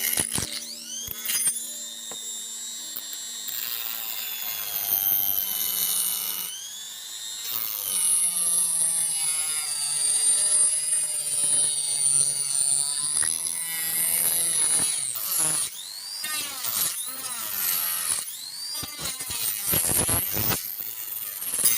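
Electric angle grinder running and cutting. Its high whine dips and recovers in pitch again and again as the load on the disc changes, with rough grinding noise in between.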